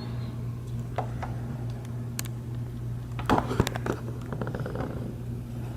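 Scattered light clicks and taps from handling small plastic parts of a glass repair kit, including a quick run of ticks a little past the middle. A steady low hum runs underneath.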